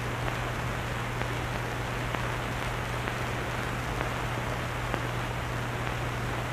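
Steady hiss with scattered faint crackles and a constant low hum: the background noise of an old film soundtrack during a pause in the narration.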